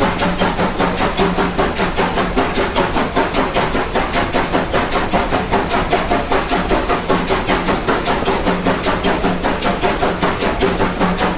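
Baldwin 2-8-2 steam locomotive working hard uphill, its exhaust chuffing in a fast, even beat of about four a second, heard close up from among the driving wheels.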